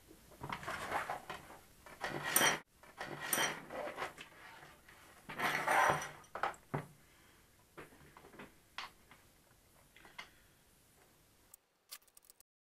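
Handling noise from a foam RC flying wing and its control linkage on a wooden table: three bursts of rubbing and scraping in the first six seconds, then a few light clicks and taps. The sound cuts off suddenly near the end.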